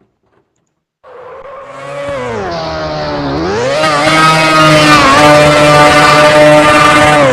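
Motorcycle engine revving hard: after a second of silence its pitch climbs, dips briefly, then climbs again and holds high and loud.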